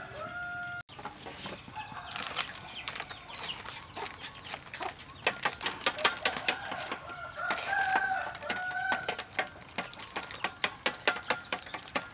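A rooster crows twice, briefly at the start and again about eight seconds in. Over the second half comes rapid clinking of a spoon beating eggs in a stainless steel bowl.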